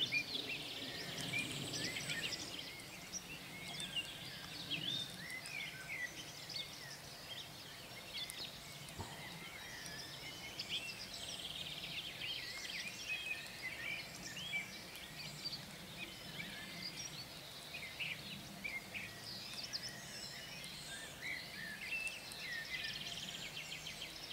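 Many songbirds calling and singing at once: short overlapping chirps and whistles, with a fast trilling phrase that comes back about every ten seconds.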